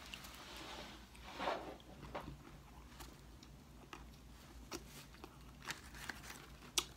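A person chewing food, with faint mouth clicks and a few small knocks.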